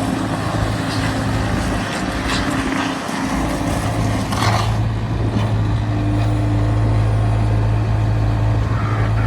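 Bobcat S185 skid steer loader's diesel engine running with a steady low drone. A few short hissing rattles come in the first half, and about halfway through the drone grows louder and steadier.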